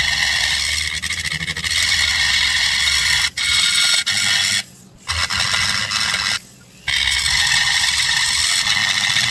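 A high-speed rotary tool with a long-shank bit grinding into the crankcase of a Homelite XL922 Super chainsaw, making a steady, loud, high-pitched grinding whine. It is trenching the transfer passages to give a smooth path out of the bottom end. The tool stops twice for about half a second around the middle, then runs on.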